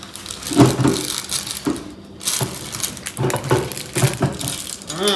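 Clear plastic bag of cake mix crinkling and rustling in the hands as it is worked open, a busy run of small crackles.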